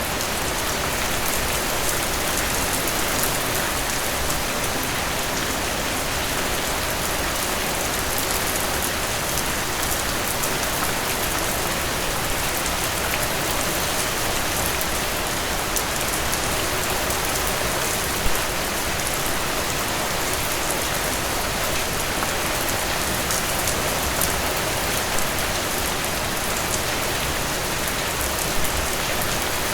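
Steady rain falling on a hard surface, an even hiss with many small drop ticks and a few louder single drips.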